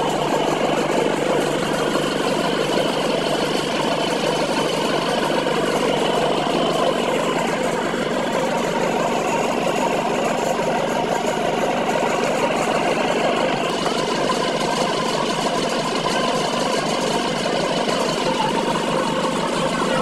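Asphalt paver's diesel engine running steadily with the machine's mechanical clatter, at an even level throughout.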